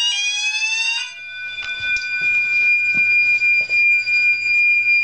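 Electronic fire alarm sounder going off after a detector under test has triggered the system into alarm. It gives a rising sweep tone, then about a second in changes to a steady high tone.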